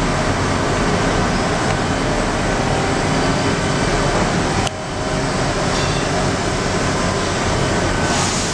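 Steady machine-shop background noise: a constant mechanical hum and rush, with a brief click and dip in level about halfway through.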